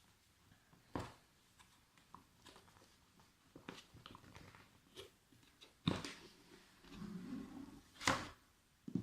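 Cardboard laptop box and its packaging being handled and opened: scattered knocks and clicks with rustling and crackling between them. The loudest knocks come about six and eight seconds in.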